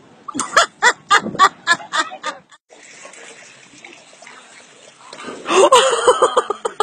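A quick run of short, sharp calls, about four a second, then a small dog falling into a swimming pool with a splash, followed by people laughing and shouting.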